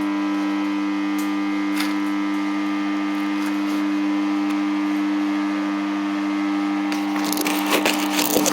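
Electric welding machine humming steadily, with a few short clicks and crackles near the end.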